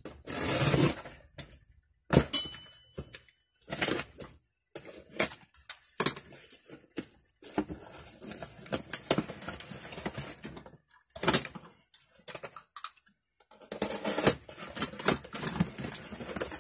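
Large steel spanners clinking and knocking as they are handled and set down, with a short metallic ring about two seconds in, amid handling rustle.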